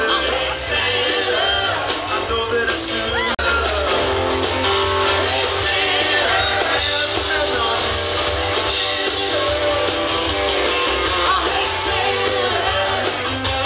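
Live rock-and-roll band playing: a singer over amplified electric guitar and drums, with a steady beat.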